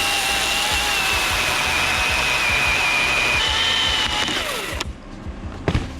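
Battery-powered Milwaukee electric chainsaw cutting through big maple wood, its motor whine sagging slightly under load. It winds down and stops about five seconds in, followed by a single sharp knock.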